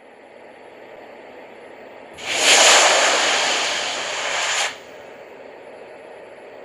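A loud burst of rushing, hiss-like noise starts about two seconds in, lasts about two and a half seconds and cuts off suddenly, over a steady faint background hiss.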